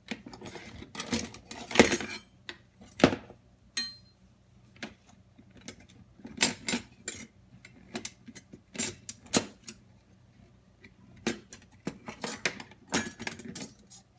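Cutlery clinking and clattering as it is lifted out of a dishwasher, in a run of irregular clinks and knocks.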